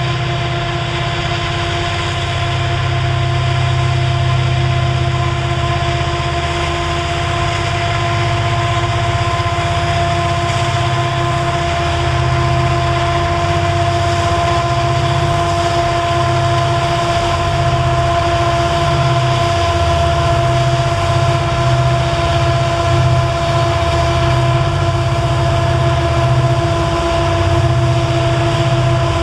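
Montana Rail Link diesel-electric helper locomotives passing close while pushing a loaded coal train up the grade: a heavy, pulsing engine rumble under load with a steady high whine over it.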